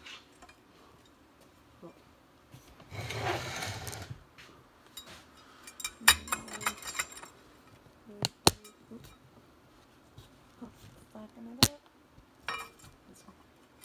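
Metal parts of a John Deere 310D reverser clutch pack being handled and seated by hand in the cast housing: a scraping rub about three seconds in, then scattered sharp clicks and clinks of steel on steel.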